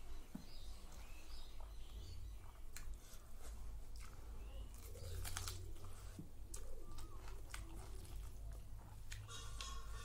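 Close-miked eating sounds: wet chewing and sharp mouth clicks while rice and curry are eaten by hand, with faint bird calls, cooing like a pigeon or dove, in the background.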